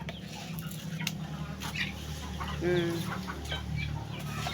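Chickens clucking as they crowd around feed, with one longer, drawn-out call a little under three seconds in.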